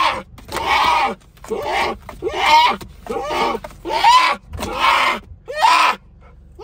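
Brown bear cub crying in distress, a string of about eight short bawling cries, each rising then falling in pitch, roughly one every second.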